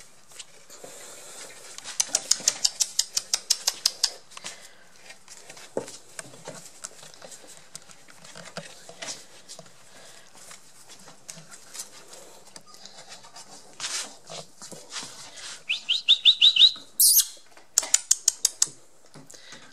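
Three-week-old Border Collie puppies squeaking and squealing as they scramble about a wooden whelping box, with quick runs of scratchy clicks, several to the second, and a short burst of high squeaks followed by one sharp squeal near the end.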